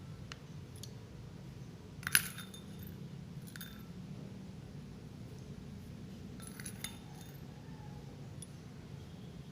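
A metal teaspoon clinking against a glass as cloves are spooned into warm water: a few short clinks, the loudest about two seconds in, lighter ones about a second and a half later and near seven seconds, over a low steady hum.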